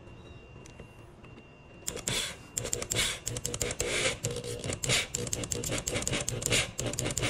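Electric drill driving a screw into a stripped hole in softwood packed with cut paper-clip pieces. It starts about two seconds in and runs in short uneven spurts, with dense clicking and scraping as the screw bites.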